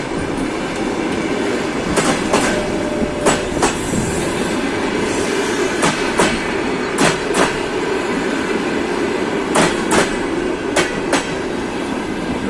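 Passenger train coaches rolling past, their wheels clacking over rail joints in closely spaced pairs, every second or so, over a steady rolling noise.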